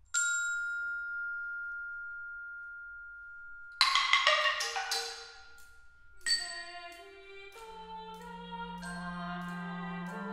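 Percussion cadenza on struck kitchen objects: one strike rings with a single clear tone for several seconds, a loud crash comes about four seconds in, then a quick run of ringing metal and glass strikes. A low held clarinet note enters near the end beneath the strikes.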